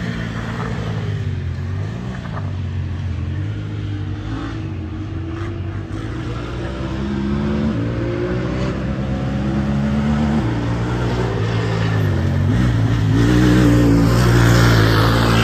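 Honda Talon side-by-side's parallel-twin engine revving under hard driving, its pitch wavering and stepping up and down with throttle and gear changes. It grows louder near the end as the vehicle comes closer.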